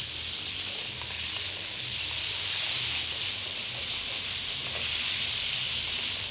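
Crab claws frying in hot oil in a pan over a gas flame: a steady sizzling hiss as the claws sweat to infuse the oil with crab flavour.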